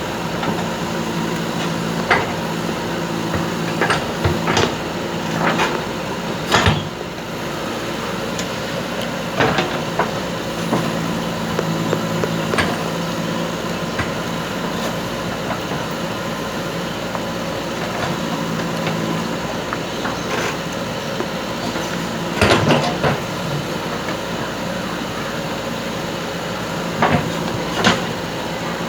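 JCB backhoe loader's diesel engine running steadily while it digs, with scattered sharp metallic knocks and clanks from the bucket and arm, bunched around a few seconds in, again in the middle and near the end.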